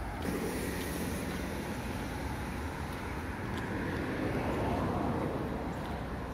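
A vehicle driving past on a street, its sound swelling about four seconds in and fading again, over a steady low rumble.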